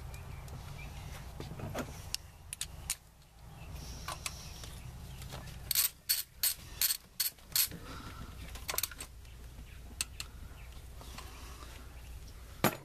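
Hand ratchet clicking as it runs in a 10 mm bolt: a quick run of about seven clicks around the middle, with a few single clicks and taps before and after.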